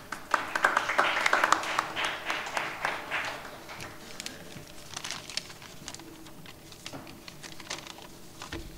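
Audience applauding: dense clapping for the first few seconds, thinning to scattered claps after that.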